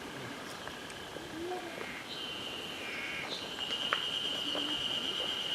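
A steady, high, unbroken insect buzz starts about two seconds in and grows stronger a little later.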